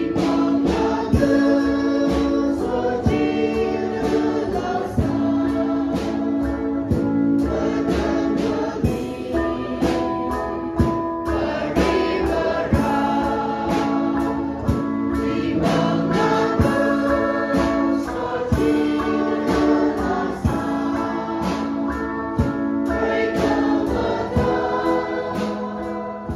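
A church congregation singing a hymn together in Tangkhul, in long held notes over a steady beat.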